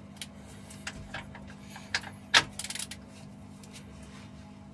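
Ratchet torque wrench on a diesel engine's cylinder head nuts: a few light metallic clicks and knocks as the socket goes on, then a sharp click about two and a half seconds in, followed by a quick run of ratchet clicks. The sharp click is the wrench releasing at its 110 setting on a nut that is already tight.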